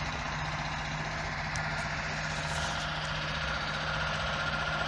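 Steady running of heavy roadworks machinery, an engine idling with a constant low hum. A thin high whine joins it about halfway through.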